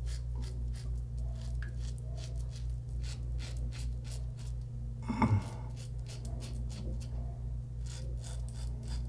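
Merkur 34G double-edge safety razor with a Wilkinson Sword blade scraping stubble through shaving lather in quick, short strokes, several a second, over a steady low hum.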